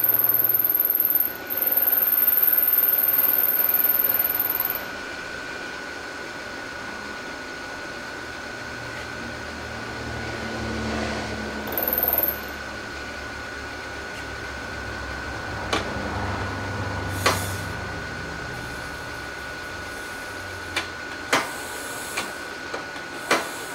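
Millport Model 2S milling machine cutting metal: a loud cut with a high whistle, which stops about five seconds in. The mill then runs on with a steady whine, and a few sharp clicks and knocks come near the end.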